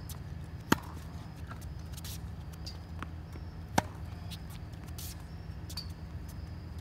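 Tennis racket striking the ball on forehand groundstrokes: two sharp hits about three seconds apart. Fainter taps come from ball bounces and steps on the hard court, over a steady low hum.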